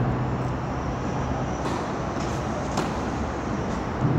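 Steady low background rumble of an indoor hall. In the second half come a few sharp knocks about a second apart: a tennis ball struck by rackets in a rally on clay.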